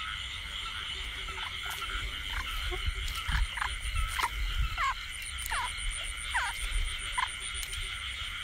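A chorus of field frogs calling at night: a steady background chorus with short, falling calls repeating irregularly, thicker from about two seconds in. These are breeding calls of frogs out to feed and pair up at the start of the rainy season.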